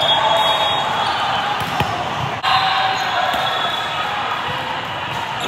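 Volleyball hall ambience: many voices chattering and calling in a large, echoing hall. A couple of sharp ball strikes land about two seconds in.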